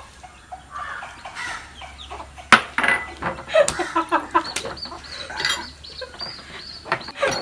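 Hens clucking in the background in short, scattered calls, with a sharp click about two and a half seconds in.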